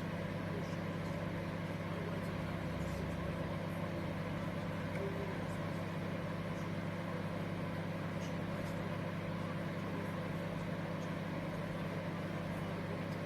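COMFEE' 19L 700W mini microwave oven running: a steady, unbroken hum.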